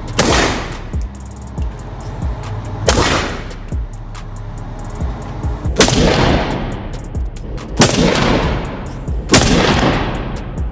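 Five gunshots a few seconds apart, each sharp crack followed by a long echoing tail.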